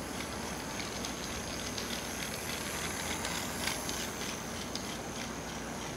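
Toy Taiwan High Speed Rail train, battery-powered, running on blue plastic track: a steady high-pitched motor whine over rapid clicking of the wheels on the track. It gets a little louder as the train passes close by about three and a half seconds in.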